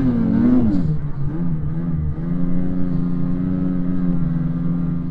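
Snowmobile engine revving under load, its pitch swinging up and down in the first second or two, then holding steady at high revs from about two seconds in.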